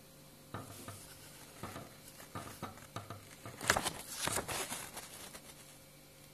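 Irregular rustling and light knocking, like something being handled, with the loudest cluster of knocks a little past halfway.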